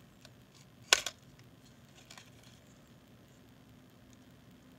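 A single sharp click about a second in, followed by a few faint small clicks: tools and small parts being handled on a desk.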